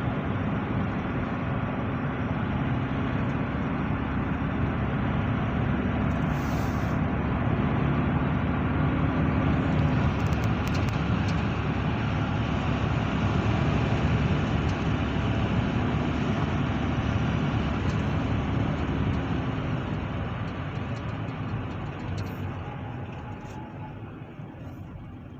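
Car driving on the road: steady tyre and engine noise with a faint steady hum, growing quieter over the last few seconds.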